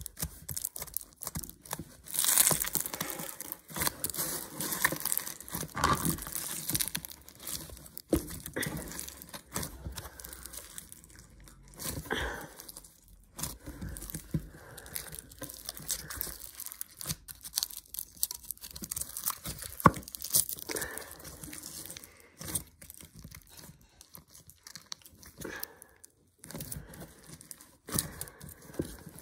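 Aluminium foil crinkling and tearing as hands squeeze and peel it off a lump of slime, in uneven crackly bursts, with one sharp snap about two-thirds of the way through.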